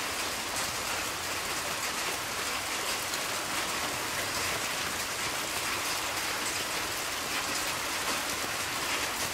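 Steady hurricane rain falling on the trees and ground: an even hiss with a fine patter of drops.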